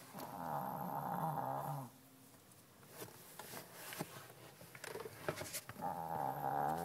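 A Shih-tzu snoring in her sleep: two long snores, each nearly two seconds, one at the start and one near the end, with faint ticks between.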